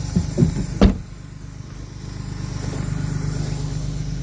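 A vehicle engine idling with a steady low rumble, with a sharp knock just under a second in.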